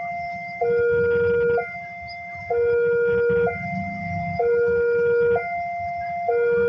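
Electronic railway level-crossing warning alarm sounding a two-note high-low tone, each note held for about a second, warning that a train is approaching.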